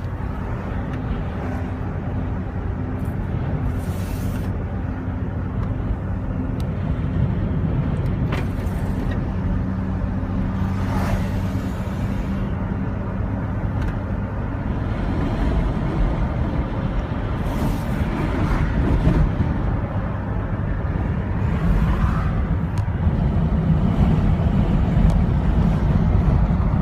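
Car driving, heard from inside: a steady engine hum with low road rumble. The hum fades about halfway through, and the rumble grows louder near the end.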